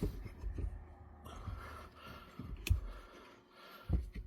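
Handling noises from fitting an aftermarket pedal cover over an accelerator pedal: a few dull knocks and a single sharp click about two and a half seconds in, with another knock near the end.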